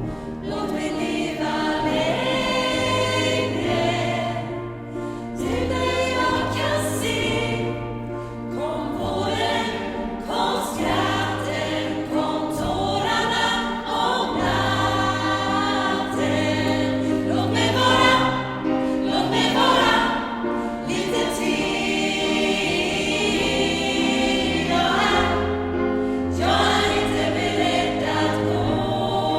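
Gospel choir singing with accompaniment, over a bass line that moves every second or two.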